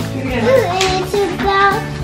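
Background music: a sung melody over steady bass notes.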